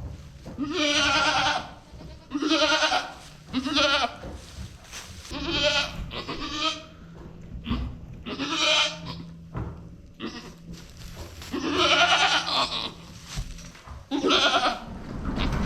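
Goats bleating, about seven separate calls spread over the stretch, each lasting under a second to about a second and a half.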